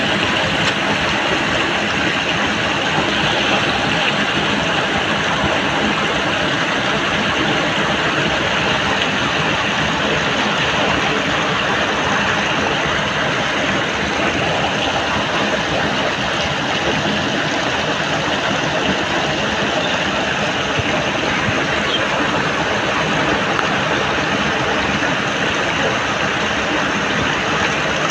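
Muddy water splashing and rushing without a break as it is scooped and thrown by hand in shallow floodwater.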